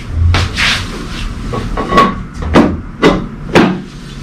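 Sharp knocks and clunks with rubbing between them, about six in all, as the lower tower beam of a small wind turbine is worked into its T-shaped base.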